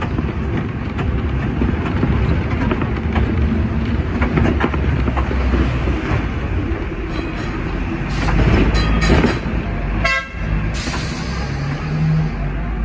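Sixth-generation Hong Kong double-decker tram running along street rails with a steady low rumble, among city traffic. A horn toots about eight seconds in.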